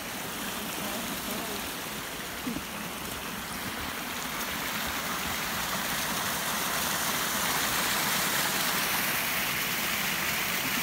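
Small woodland creek cascading over rocks: a steady rush of falling water that slowly grows louder towards the end.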